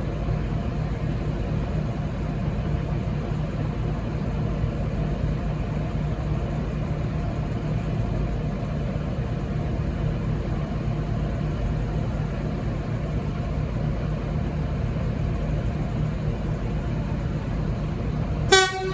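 V/Line VLocity diesel multiple unit: a steady low diesel rumble, then one short, loud horn toot near the end.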